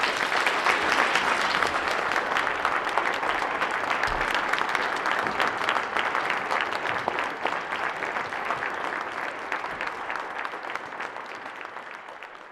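Audience applauding: a dense, steady clatter of many hands clapping that tapers off near the end.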